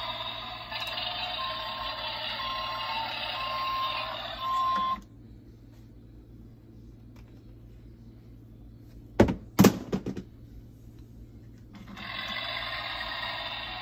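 Battery-powered toy vehicle's small speaker playing a noisy engine sound effect with a short beep about once a second; it stops about five seconds in and starts again near the end. A few sharp knocks between, about nine to ten seconds in.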